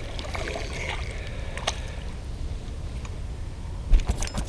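Small yellow bass splashing and flopping at the surface as it is lifted from the water, a few sharp splashes and knocks about four seconds in, over a low steady rumble and faint water sounds.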